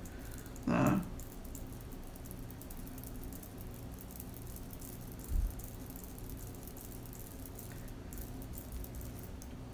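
Faint scattered ticks and light scraping of a wooden craft stick dabbing and spreading liquid resin on plastic wrap, over a steady low hum. One low thump about halfway through.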